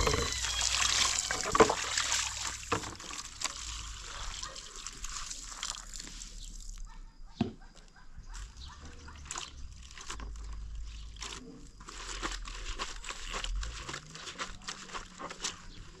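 Water from a garden hose pouring into a plastic basin while clothes are rubbed and squeezed in it by hand. About seven seconds in the steady pour gives way to scattered sloshes and drips from the wet cloth being wrung.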